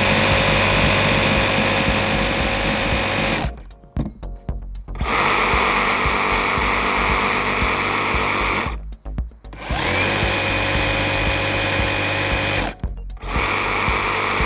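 Cordless reciprocating saws (Makita 18V JR187D and HiKOKI CR36DA) running free with no blade fitted, with a steady motor whine. The sound stops and restarts about three times, climbing in pitch as a saw spins up again about ten seconds in.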